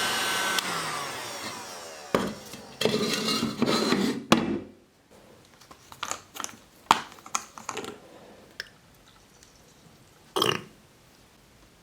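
A small electric power tool is switched off and whirs down, falling in pitch over about two seconds. Then come irregular scraping and clattering knocks of tool handling, scattered sharp clicks, and one short rasp near the end.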